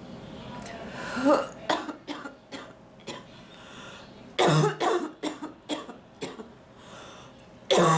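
A woman's coughing fit: a rising, strained intake about a second in, then runs of short coughs, with the loudest bouts about four and a half seconds in and again near the end. A ticklish cough from an illness, unproductive today, the congestion sitting and not coming up.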